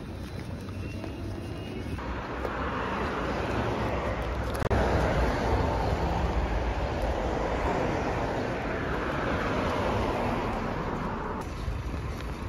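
Steady outdoor street ambience with traffic noise, changing abruptly about two seconds in and again near the end, with a sharp click about a third of the way through.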